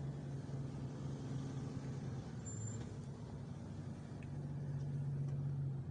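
Semi truck's diesel engine running steadily, heard from inside the cab as a low hum that swells a little near the end.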